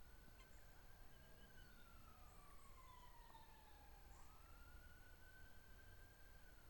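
Faint siren wailing slowly up and down, rising and falling about twice over a few seconds.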